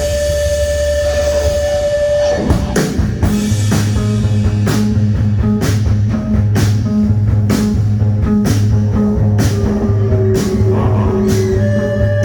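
Live rock band playing: a held tone over a low drone, then drums and bass come in about two seconds in with a steady beat.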